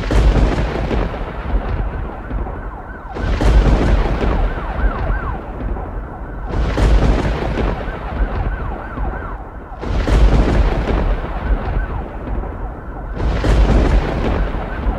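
Loud end-credits soundtrack: a deep boom with a swelling rush of noise about every three seconds, over a constant rumbling bass bed and a faint held high tone.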